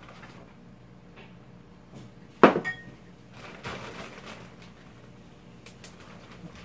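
Tableware clinking: one sharp knock of dishes or utensils about two and a half seconds in, with a brief ring after it. Softer handling sounds and a couple of light clicks follow.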